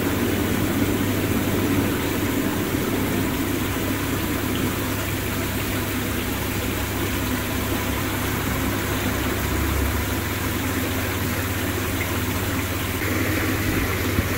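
Artesian Spas Dove Canyon hot tub with its seven jet pumps running and all jets on: water churning steadily over a constant low pump-motor hum.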